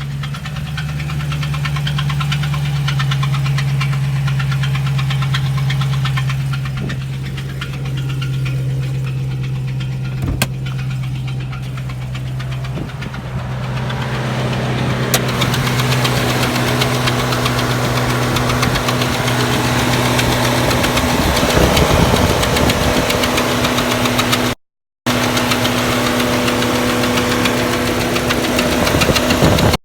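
Chrysler 392 (6.4 L) HEMI V8 running with an abnormal noise that the owner suspects comes from a bad lifter, rocker or pushrod. The noise appeared after a hard launch, and the engine still makes full power. About halfway through, the sound becomes brighter and somewhat louder.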